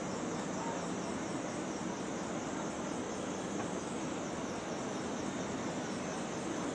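Steady city street noise of traffic and crowds blended into a constant hum, with a high hiss wavering above it.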